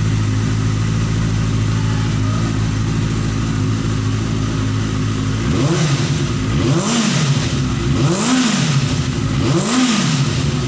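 Benelli TNT 600i inline-four engine through its stock exhaust, idling steadily, then from about halfway in revved up and back down repeatedly, roughly one blip every second and a half.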